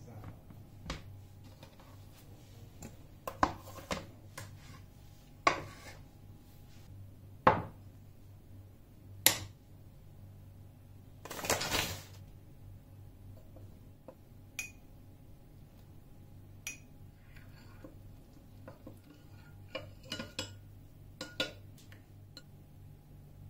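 Kitchenware clinking and knocking at intervals on a wooden chopping board: a ceramic bowl and utensils being set down, with a longer scraping noise about halfway through. Near the end a metal spoon clinks against a ceramic bowl while stirring a flour-and-water slurry.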